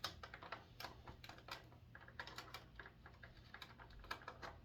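Faint, irregular clicking and crackling of a plastic blister tray being handled and pulled at to free an action figure from its packaging.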